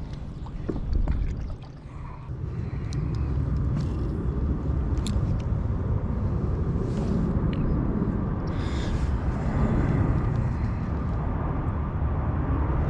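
Steady low rumble of wind on the microphone, with a few light clicks and short hissing sounds over it.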